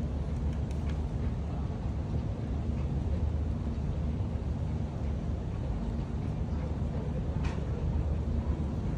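Steady low rumble of boat engines on the water, with one faint click about seven and a half seconds in.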